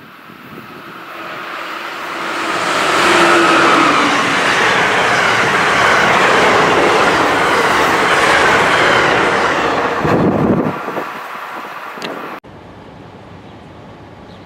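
A train passing close by, its rail cars rumbling and clattering along the track. The noise builds over the first few seconds and holds loud and steady. It fades near the end, then cuts off abruptly.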